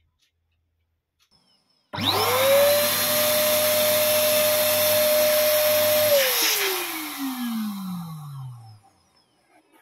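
Electric dual-nozzle balloon pump switching on about two seconds in. Its motor whines quickly up to speed and runs steadily with a hiss of air while it inflates two latex balloons. It is switched off about four seconds later and spins down with a falling whine.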